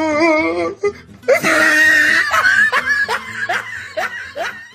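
Meme laughter sound effect: a wavering, quavering voice, then a loud outburst of laughter breaking into a run of short 'ha' syllables that grow quieter.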